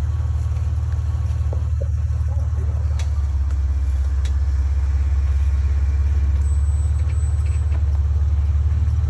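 A Jeep's engine and drivetrain rumbling steadily as it crawls along an off-road trail, growing a little louder in the second half, with a couple of light clicks about three and four seconds in.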